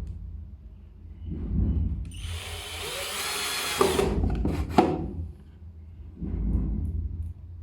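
Power drill running in short bursts during assembly of an industrial sewing machine table and stand, with a longer, higher-pitched run near the middle that ends in a few sharp clicks.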